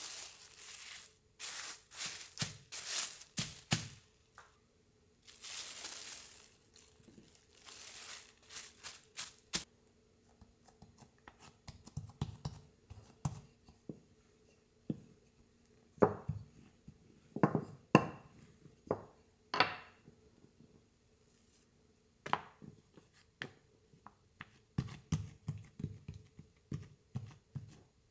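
A wooden rolling pin rolling bread dough flat on a silicone mat, with scraping, rustling strokes in the first ten seconds or so. After that come scattered sharp clicks and knocks as the pin and dough are handled.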